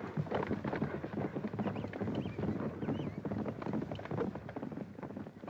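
A few horses galloping over dry ground: a fast, irregular clatter of hoofbeats.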